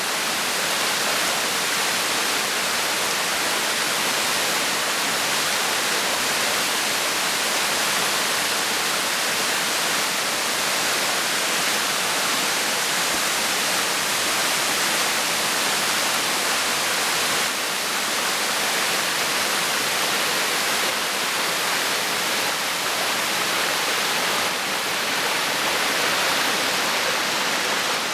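Waterfall: a steady, unbroken rush of falling water, mostly a high hiss with little low rumble.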